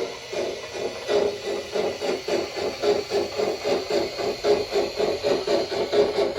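Simulated steam-locomotive chuffing from a DCC sound decoder in a Bachmann Shay model locomotive, played through the model's small speaker: an even, hissing chuff that quickens to about four or five beats a second as the engine gets under way.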